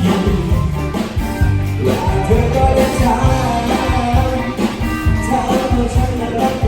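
Music with a steady bass beat and a singing voice.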